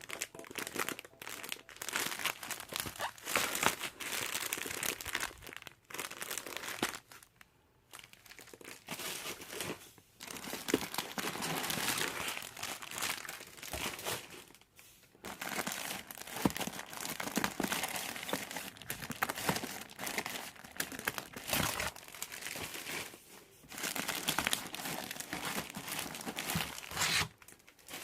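Packaging crinkled and torn open by hand, in irregular spells of rustling and crackling with a few short pauses.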